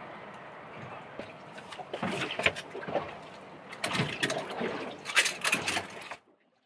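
Knocks and clattering of gear being handled aboard a small fishing boat, in clusters over a steady hiss; everything cuts off suddenly near the end.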